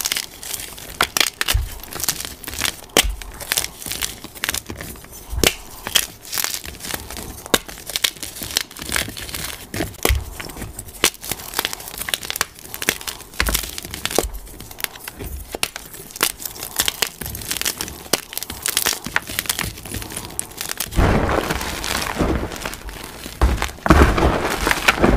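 Hands crushing and crumbling blocks of plain gym chalk: a dense run of sharp crunches and crackles. The crunching turns fuller and louder near the end, as the hands dig into a heap of powdery chalk.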